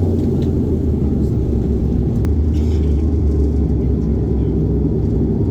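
Steady low drone of a Bombardier Q400's Pratt & Whitney PW150A turboprop engines and propellers, heard inside the cabin, with a faint click about two seconds in.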